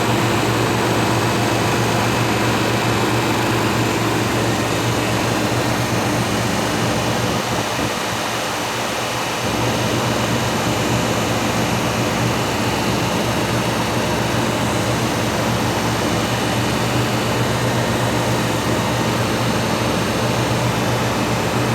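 Elmo Rietschle VC 300 oil-lubricated rotary vane vacuum pump running steadily on test after repair, a constant machine noise with a low hum. It eases slightly for a moment about eight seconds in.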